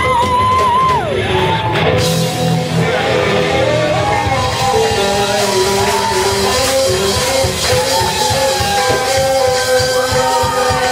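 Live band playing loud rock-style music: electric guitars, bass and drum kit over a steady beat, with vocals.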